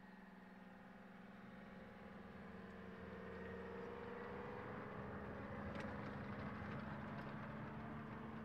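Tank engine running steadily as the tank passes, growing louder over the first several seconds and easing off near the end, with a few sharp clicks about midway.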